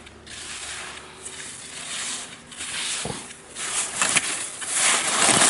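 Slalom skis carving turns on snow, the edges scraping in swells with each turn and growing louder as the skier comes closer, with a dull knock about three seconds in.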